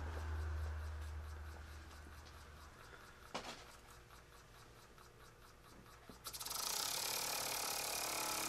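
Tiny oscillating live steam model engine running slowly, its exhaust puffing in a steady ticking rhythm of about five beats a second. About six seconds in it speeds up and the exhaust turns into a loud, continuous hiss.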